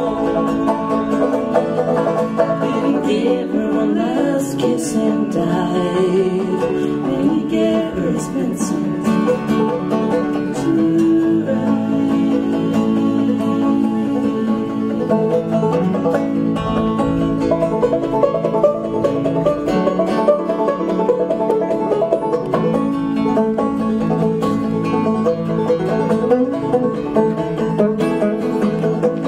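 Banjo and acoustic guitar playing a folk tune together live, an instrumental passage at the end of the song.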